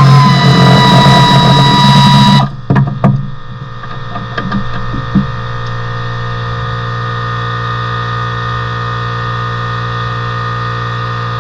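A high-whining power tool runs for about two and a half seconds, its pitch settling slightly lower, then stops suddenly. A few sharp clicks follow, then a steady low mechanical hum.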